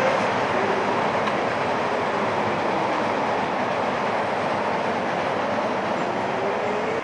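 A multi-car electric train rolling across a steel truss railway bridge: a loud, steady rolling rumble with a few faint sliding whines, easing off slightly.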